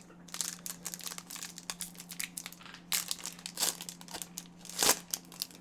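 Crinkling of a trading-card pack wrapper being handled, in irregular crackles with the loudest a little before the end.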